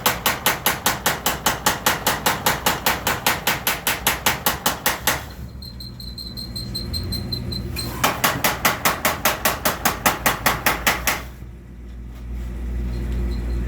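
Mechanical trip hammer (power hammer) pounding hot steel in two fast runs of about five blows a second, each lasting several seconds with a short pause between, drawing out a railroad spike. A steady low hum from the hammer's drive runs under the blows and through the pause.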